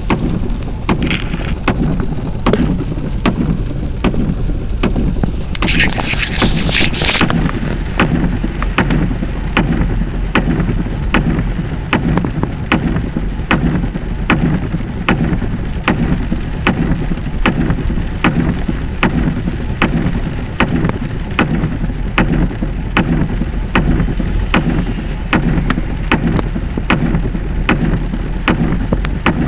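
A vehicle driving through deep floodwater, with water churning and rushing around it. A regular ticking comes about twice a second, and a brief hissing splash of spray comes about six seconds in.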